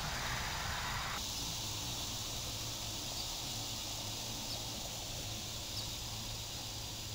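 Steady outdoor summer ambience: an even, high insect chorus over a constant low hum, with a broader hiss dropping away about a second in and a few faint short ticks later.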